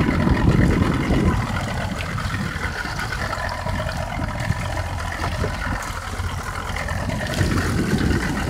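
Fishing boat's engine running steadily, with wind gusting on the microphone in the first second or so and again near the end.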